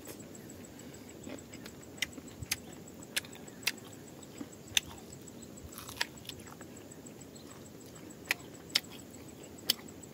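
A person chewing a mouthful of rice and meat, with sharp wet mouth clicks and smacks at irregular moments, about ten in all, over a faint steady background.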